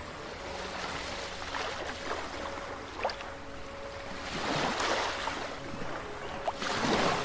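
Soft ambient background music of faint held tones with ocean wave sounds, the surf swelling up twice, once past the middle and again near the end.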